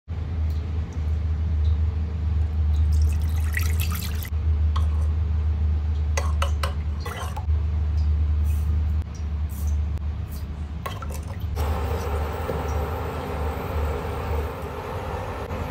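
Water and sugar being worked in a nonstick saucepan: a few sharp clinks and taps of a spoon against the pan, then from about three-quarters of the way in a steady stirring noise as a spatula moves through the liquid, all over a steady low hum.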